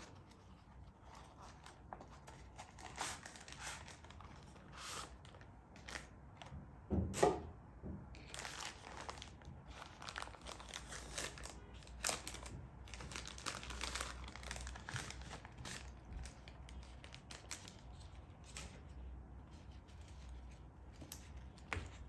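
Packaging being handled and unwrapped: intermittent crinkling, rustling and tearing with scattered light clicks, and one louder thump about seven seconds in.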